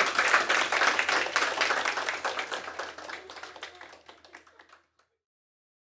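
Audience applauding at the end of a song, the clapping dying away and cut to silence about five seconds in.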